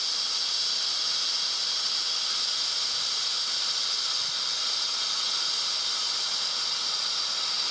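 Compressed air hissing steadily out of the opened condensate drain valve of an air compressor's tank as the condensate is blown out.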